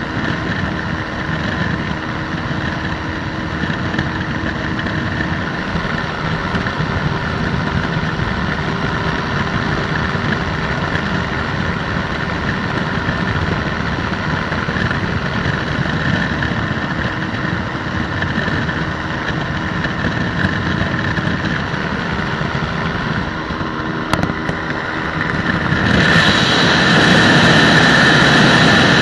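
Flex-wing microlight trike's engine and propeller running steadily in flight. About three seconds before the end the sound turns louder and brighter.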